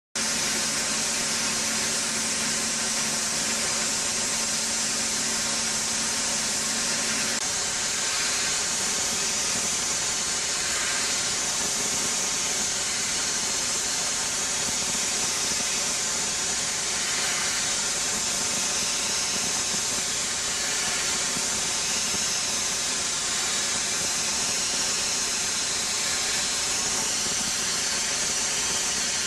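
Ultra-high-pressure water jet carrying copper slag abrasive, blasting steel, heard as a loud, unbroken hiss. It is stripping the steel back to bare metal with a fresh anchor pattern (SA 3 equivalent). A faint steady hum sits under the hiss for the first several seconds.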